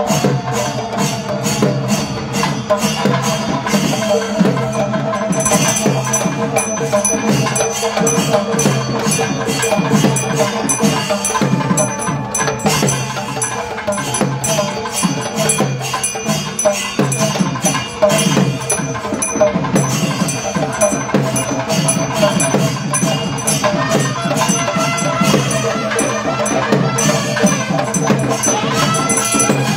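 Temple percussion ensemble playing a fast, dense drum rhythm with cymbals clashing, over a steady held tone.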